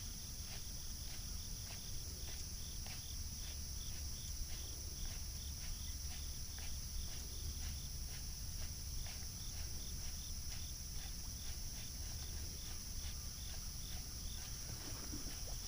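Insects buzzing steadily and high, with an even ticking about three times a second and a low rumble of wind or water underneath.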